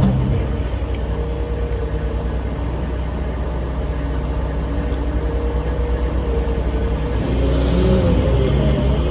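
A vehicle engine running steadily, its pitch shifting as it revs up about seven seconds in.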